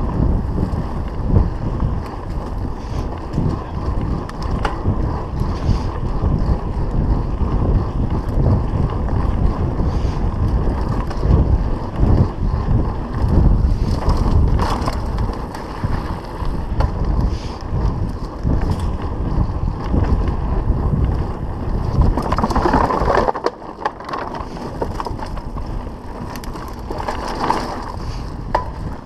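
Mountain bike riding over rough dry dirt singletrack at speed, heard mostly as wind rumbling on the camera microphone, with tyre noise and frequent rattles and knocks from the bike over bumps. Late on the wind rumble drops off and the ride sounds quieter.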